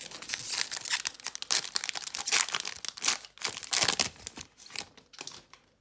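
Plastic trading-card pack wrapper being torn open and crinkled, a dense run of rapid crackling that thins out near the end.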